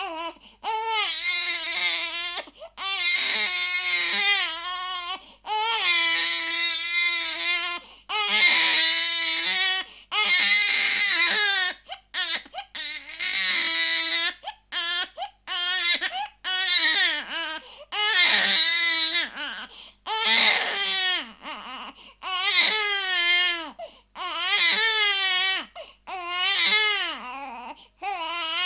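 Infant crying hard: a run of loud, high-pitched wails, each about one to two seconds long, broken by quick catches of breath.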